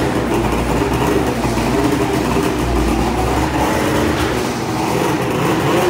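Polaris Pro RMK 800 mountain snowmobile's two-stroke engine running steadily in a shop.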